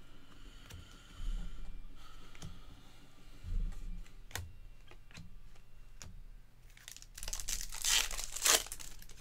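Trading cards flicked through by hand with light clicks and rustles, then a foil Bowman baseball card pack torn open and crinkled about seven seconds in, the loudest sound.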